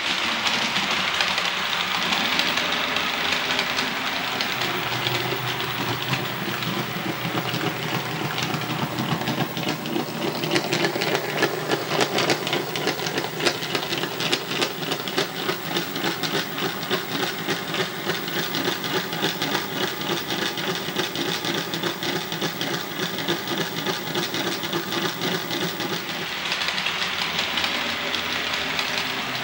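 Model G5 steam tank locomotive running on the layout's track while hauling four coaches up a bank: a steady mechanical running noise with fast, even clicking. Four coaches are probably one too many for it on the climb.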